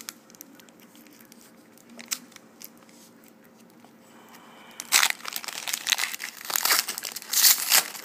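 A trading-card pack's foil wrapper crinkling as it is handled and torn open. The first few seconds are quiet, with a couple of light clicks. Loud crinkling and tearing follows in the last three seconds.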